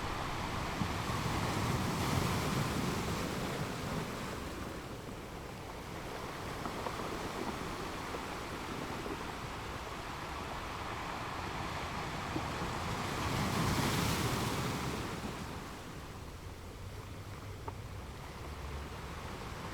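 Sea waves surging and washing back, a steady rush that swells twice: about two seconds in and again around fourteen seconds.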